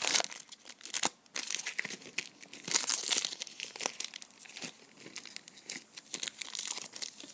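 Shiny foil wrapper of a trading card pack being torn open and crinkled in the hands: a run of irregular crackles and rustles, loudest at the start and again about three seconds in.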